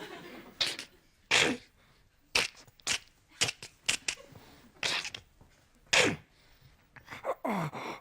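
A man making sound effects with his mouth into a microphone: a string of short, sharp hissing and clicking bursts, and a brief falling vocal sound near the end.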